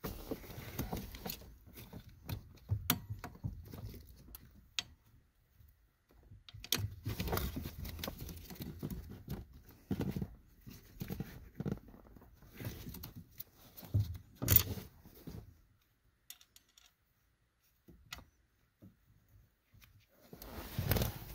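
Hand tools working a 10 mm bolt into a clutch master cylinder mount: small metal clinks, taps and scraping in irregular bursts, with a few sharp clicks, then a stretch of near quiet before the handling noise returns near the end.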